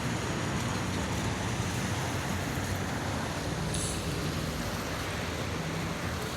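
Steady outdoor ambient noise: an even rushing hiss with a low hum underneath, holding level throughout with no distinct events.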